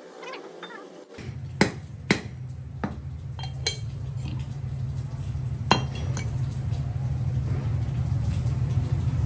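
Sharp metallic clinks, five or so scattered over a few seconds, over a steady low rumble that starts about a second in and slowly grows louder.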